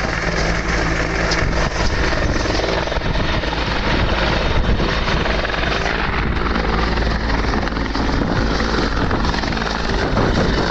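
Helicopter hovering low close by, its rotor and turbine engine running loud and steady.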